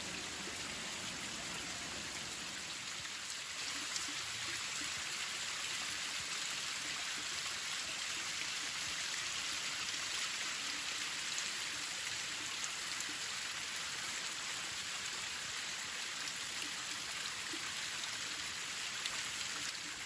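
Steady, even water noise without pauses, with a few faint ticks.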